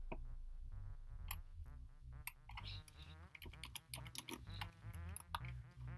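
Computer keyboard keys clicking in irregular runs over faint background music.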